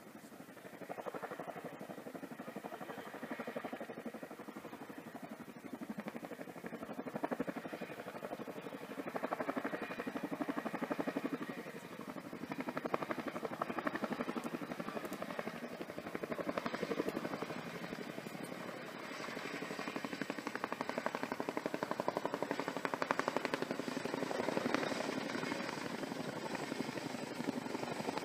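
Helicopter approaching, its rotor beating in rapid, even pulses that grow louder towards the end.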